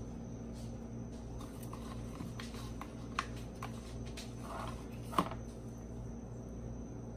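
Light clicks and taps of hands handling raw biscuit dough and a cardboard biscuit can over a glass baking dish, the sharpest click about five seconds in, over a steady low hum.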